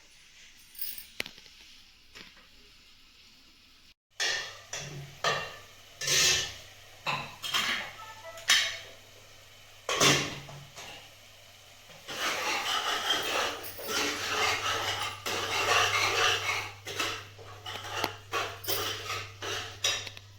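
Kitchen utensils clattering: metal pots, pans and spoons clinking and knocking, with a denser run of continuous clatter for several seconds past the middle. A low steady hum runs underneath after the first few seconds.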